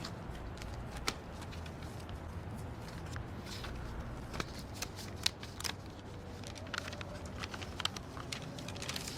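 Scattered small clicks and light handling noises, irregular and a few a second, over a low steady room hum.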